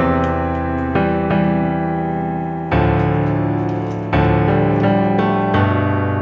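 Background piano music: slow sustained chords, a new chord struck about every second or two.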